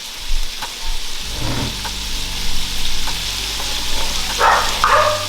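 Food sizzling steadily in hot oil in a frying pan, with a few light clicks of a utensil against the pan.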